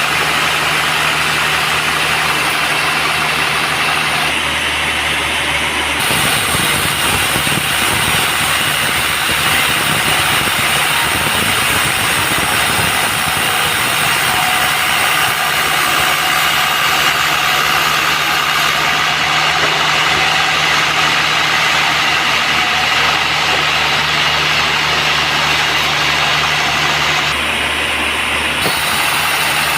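Band sawmill running with a steady mechanical drone; its sound changes abruptly a few times, about 4 and 6 seconds in and again near the end.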